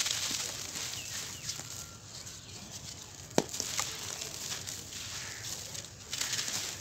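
Hands crumbling dry sand-cement chunks, with a gritty hiss of crumbs and dust pouring onto a pile and small crackling clicks. There is one sharp knock about three and a half seconds in.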